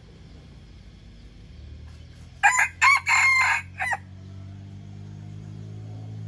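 A young red junglefowl cock crows once, about two and a half seconds in. The crow is short, about a second and a half, and broken into a few choppy pieces, typical of a cockerel still learning to crow. A low steady hum runs underneath.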